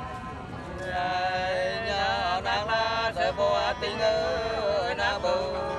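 Nùng sli folk singing: two voices sing together in long, wavering, gliding notes, coming in louder about a second in.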